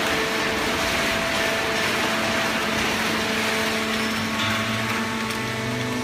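Horizontal hydraulic waste-paper baler running: steady machine noise with several steady hums from its motor and hydraulic pump. A deeper hum joins about four and a half seconds in.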